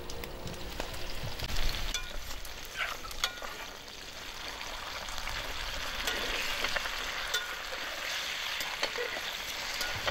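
Potato wedges frying in oil in a pot: a steady sizzle with crackles, and a few scrapes and clicks of a metal fork stirring them.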